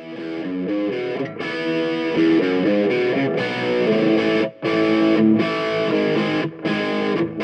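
Instrumental music led by a guitar, with a run of changing notes that stops dead for an instant several times.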